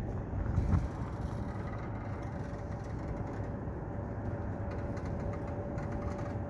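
Steady low engine rumble with a faint steady hum over it, and one brief thump just under a second in.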